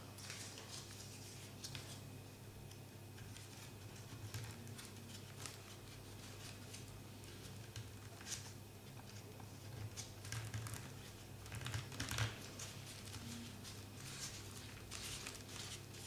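Folded paper triangles of a 3D origami model rustling and tapping as they are handled and pushed into the paper pockets of the model: irregular soft rustles and clicks, a few louder ones in the second half, over a steady low hum.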